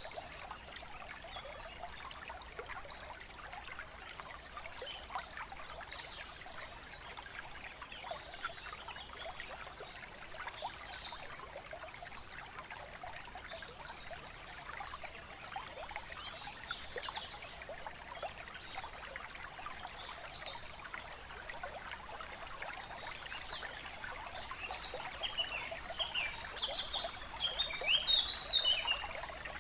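Babbling stream with birds chirping: a steady trickle of running water, with short high chirps repeating throughout and a louder flurry of birdsong near the end.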